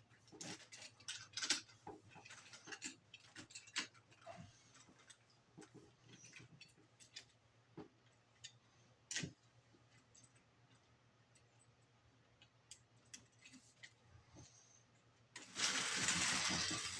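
Irregular light plastic clicks and taps from toy trains and track pieces being handled, thick at first and then sparse. About a second and a half before the end a sudden loud, noisy clatter breaks in.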